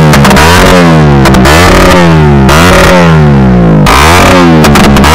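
Bajaj Pulsar NS200's 200 cc single-cylinder engine revved over and over through an aftermarket Akrapovic-branded exhaust, loud, with pitch rising and falling after each blip of the throttle. Sharp pops and crackles from the exhaust come as the revs drop.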